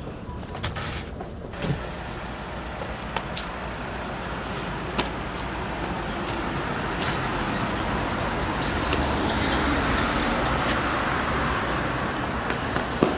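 A road vehicle passing by, its noise slowly swelling to a peak about ten seconds in and then easing off. Scattered sharp footfalls and landing thuds on paving are heard over it.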